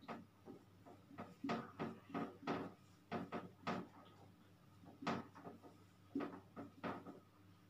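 Marker pen writing on a whiteboard: a string of short, irregular strokes, several in quick clusters.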